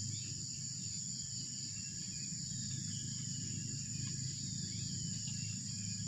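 Steady high-pitched insect drone, with a few faint whistles sliding down in pitch over a low background rumble.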